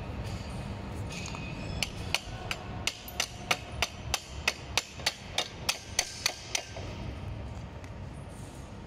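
Yellow-faced mallet tapping a steel pin into an electric scooter's folding mechanism: about fifteen sharp knocks, roughly three a second, beginning about two seconds in and stopping after about six and a half seconds.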